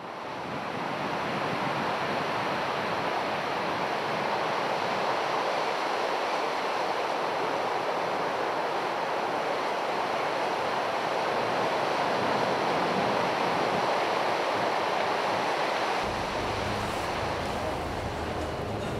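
Sea surf washing onto a beach: a steady rush of noise that fades in over the first second or so. About three seconds before the end a low hum joins in.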